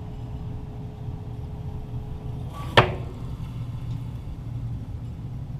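A single .22 Walther GSP target pistol shot, heard from near the target, sharp and brief, about three seconds in, over a steady low hum.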